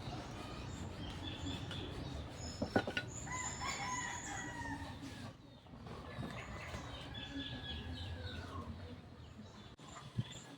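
A rooster crowing twice, each crow a long call that falls away at the end, with small birds chirping high above it. A single sharp knock comes just before the first crow.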